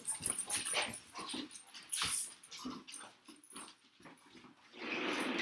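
A pet dog making short, irregular vocal sounds, with a longer, louder stretch near the end.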